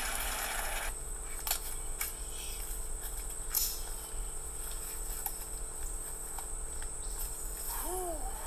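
For about the first second, a side-by-side utility vehicle driving over a dirt trail; then it cuts to steady high insect chirring in the woods, with a few sharp clicks and knocks.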